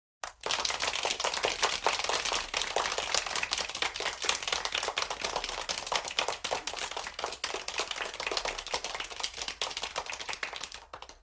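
Applause from a small studio audience of children: a thick run of hand claps that starts suddenly and slowly thins out toward the end.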